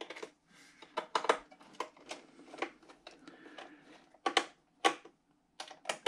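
Irregular sharp clicks and taps of a small precision screwdriver working a screw in an iMac's aluminium chassis, with two louder clicks about two-thirds of the way through.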